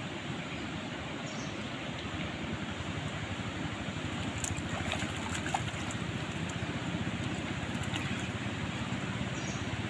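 Steady rushing of flowing river water, growing slightly louder, with a few light clicks and splashes about halfway through.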